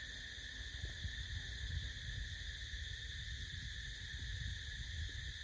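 Steady, high-pitched droning of insects in chorus, cutting in abruptly, with an uneven low rumble underneath.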